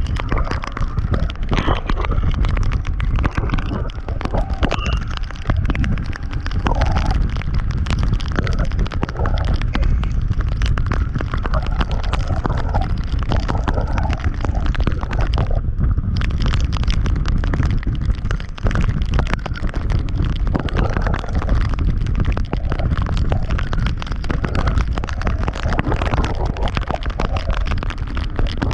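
Heavy, continuous wind buffeting on a camera microphone while riding a scooter at highway speed: a loud, deep rumbling roar full of rapid irregular thumps.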